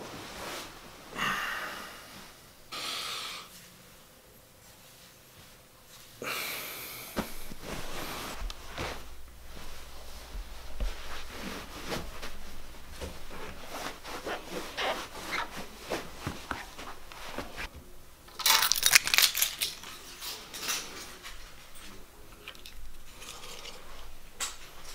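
Rustling of a comforter as someone gets up from a couch, then shuffling footsteps on carpet and knocks from a handheld camera, with a louder rustling burst about three-quarters of the way through.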